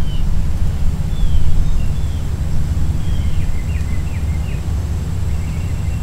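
Steady low rumble of wind on the microphone, with a few short, faint bird chirps in the middle, including a quick run of them.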